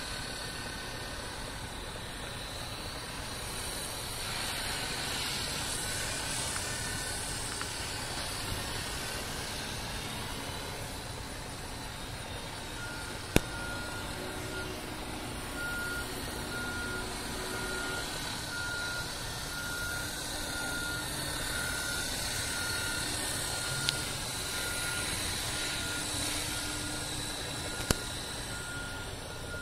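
Radio-controlled helicopter in flight: steady rotor and motor noise that swells and eases slowly. About halfway through, a high beep starts repeating roughly once a second, and a few sharp clicks are heard.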